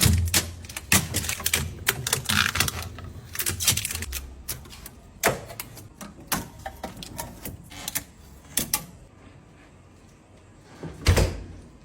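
Items being handled and set down in a new refrigerator: a quick run of clicks, clacks and knocks that thins out after about nine seconds, then a dull thump near the end.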